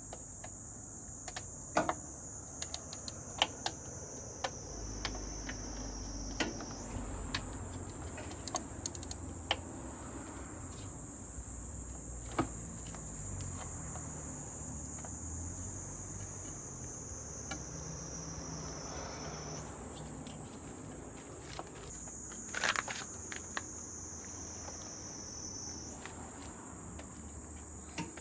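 Insects trilling in a steady high pitch that sags and jumps back up several times, with scattered sharp clicks and light knocks.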